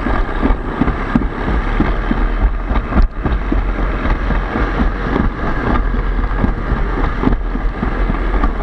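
Alpine slide sled running fast down its track, rumbling and clattering over the surface, with wind buffeting the head-mounted microphone. A sharp knock about three seconds in.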